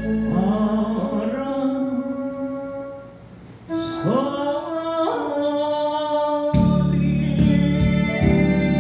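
A Korean ballad sung live: sliding, held vocal notes over a backing of guitar and organ. There is a short dip in level about three seconds in, and the full band with bass comes in about two-thirds of the way through.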